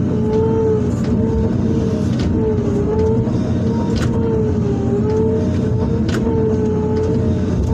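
Excavator's diesel engine and hydraulic pump running under load, heard from inside the cab. A steady whine sags in pitch now and then as the boom and bucket work, over a low rumble, with a few sharp knocks scattered through.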